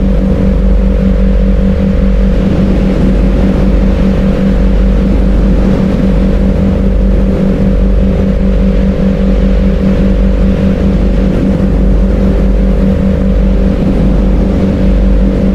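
Loud, steady droning background sound: constant low hum tones over a rushing haze and a deep rumble, without change. It is the masking track of a subliminal, laid over the affirmations.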